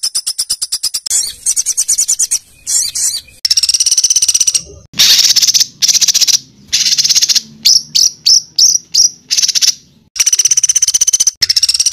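Songbird song of harsh, rapid, high-pitched trills, the fast rattling phrases bird keepers call 'tembakan kasar', delivered in repeated bursts with short gaps, the shortest and quickest bursts coming in a cluster near the middle.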